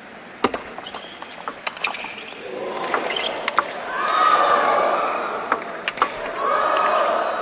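Rapid sharp clicks of a table tennis ball striking rubber-faced bats and the table in a fast rally, with background voices swelling from about two and a half seconds in.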